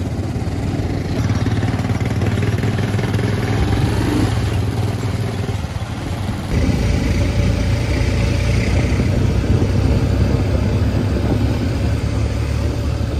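Small motorcycle and motor-tricycle engines running steadily while riding, with road and wind noise. The sound changes abruptly twice, about a second in and about six and a half seconds in.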